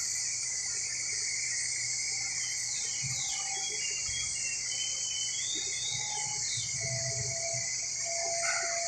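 Steady high-pitched insect drone, with a few short chirps about a third of the way in.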